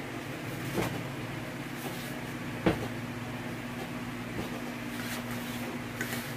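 A metal motorcycle top case being handled and turned on a bed: a few knocks and clunks, the loudest about two and a half seconds in, with a small click near the end, over a steady low hum.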